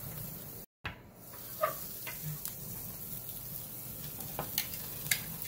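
New York strip steaks sizzling on the grill grate over a lump charcoal and oak chunk fire, a steady hiss with scattered sharp crackles and pops. The sound cuts out completely for a moment under a second in.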